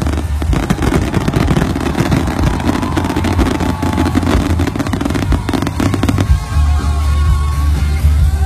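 Fireworks going off at close range in a dense run of rapid bangs and crackles that thins out and stops about six seconds in. Music with a steady deep bass carries on underneath and is left playing at the end.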